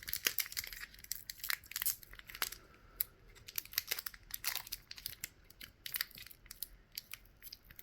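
Foil Pokémon booster pack wrapper being torn open and crinkled by hand, an irregular run of sharp crackles and rustles.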